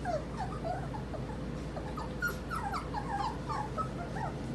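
Four-week-old puppies whimpering and yipping: a quick string of short, high, squeaky calls, thinning out near the end.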